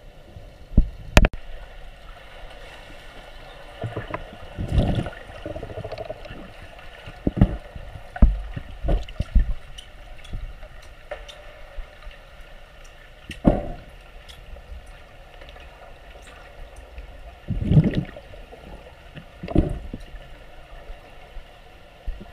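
Underwater sound in a swimming pool, heard through a submerged camera: a steady hum with irregular, muffled low thumps and knocks and scattered small clicks.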